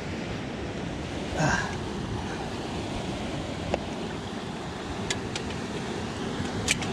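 Ocean surf washing steadily against a rocky shoreline, with a brief vocal noise about a second and a half in and a few light clicks near the end.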